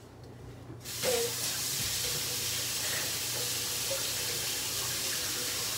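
Kitchen tap running into a sink, a steady hiss that starts abruptly about a second in and stops near the end.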